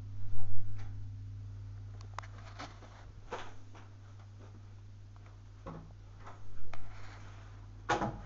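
Handling noise from a handheld camera: low thumps near the start and again about two-thirds in, with scattered light clicks and a sharper cluster of clicks near the end, over a steady low hum.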